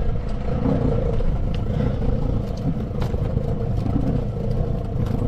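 Small boat's outboard motor idling steadily, a low rumble with a constant hum, with a few light taps on top.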